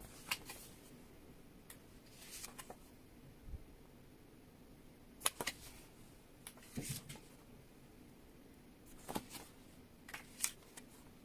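Album photo cards being handled and shuffled: faint, scattered light clicks and short rustles every second or two.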